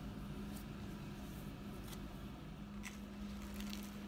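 Quiet indoor room tone: a steady low hum, with a few faint clicks and rustles in the second half.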